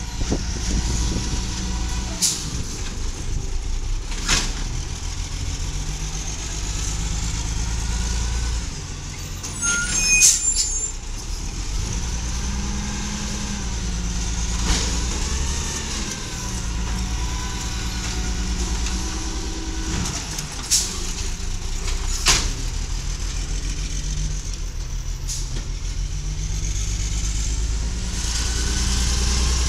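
A 1996 Volvo natural-gas garbage truck with an Amrep Octo automated side loader runs while its arm lifts and dumps a cart. Sharp air-brake hisses and knocks come every few seconds, with a brief metallic clatter about ten seconds in, and the engine grows louder near the end. The owner says the truck is not running well.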